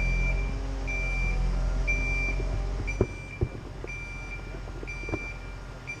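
Warning beeper of a truck-mounted crane sounding a steady high beep about once a second over the running engine. The engine drops away about halfway through, and a few sharp knocks sound.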